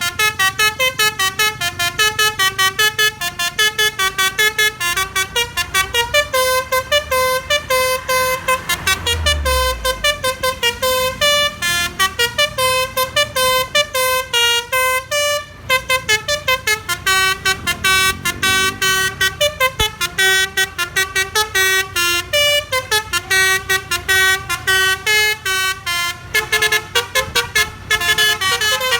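A bus's roof-mounted basuri telolet horn, a set of air-horn trumpets, playing a fast melody of stepped notes, several a second, with only brief breaks.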